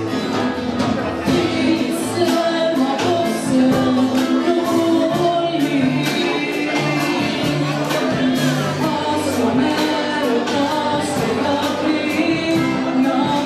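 Live acoustic guitar strummed steadily under a woman's sung vocal, amplified through microphones.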